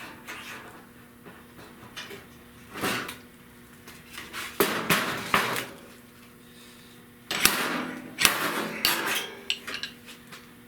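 Metal hand tools clanking and scraping against the sheet steel of a car fender in irregular bursts, with a few sharp knocks, over a faint steady hum.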